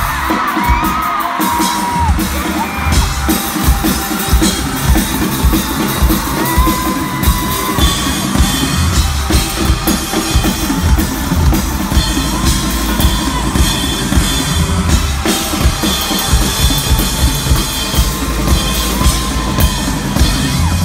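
Amplified drum kit played alone at a concert: a continuous, fast run of bass drum, snare and cymbal hits, with crowd screams near the start.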